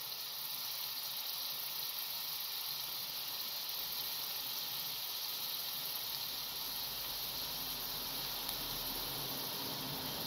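Diced onion sizzling in garlic butter in a frying pan over low heat, a steady soft hiss.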